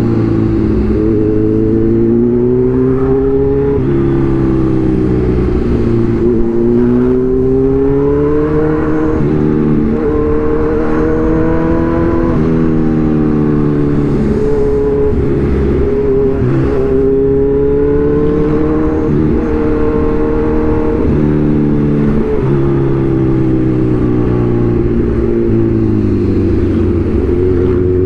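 Kawasaki Z1000's inline-four engine pulling under way, its revs climbing and falling back again and again through the ride.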